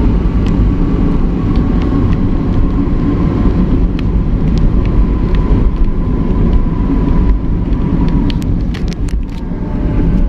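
Steady low rumble of engine and road noise from a vehicle driving along a highway, with a faint steady whine and a few sharp clicks near the end.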